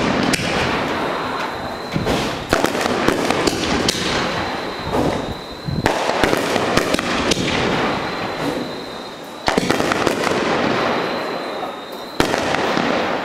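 Aerial firework shells bursting overhead: several sharp bangs, each followed by a long, dense crackle of glittering stars that fades away before the next bang.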